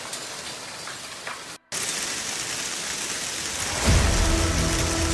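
Steady hiss of a hailstorm downpour falling outdoors, with the sound dropping out for an instant about a second and a half in. Near the end a loud low rumble of thunder breaks in and carries on.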